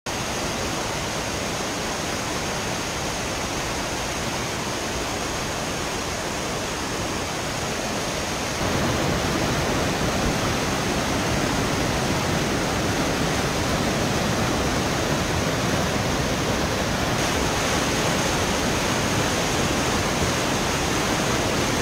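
Whitewater river rapids rushing over boulders in a steady, loud stream of water noise, which gets louder and deeper about nine seconds in.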